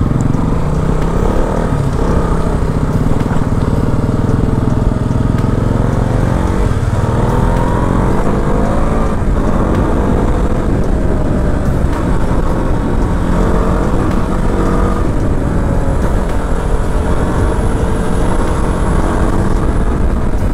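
KTM Duke 200's single-cylinder engine running under way, its pitch rising and falling with throttle and gear changes, with several rising sweeps in the middle, over a steady low rumble of wind and road noise.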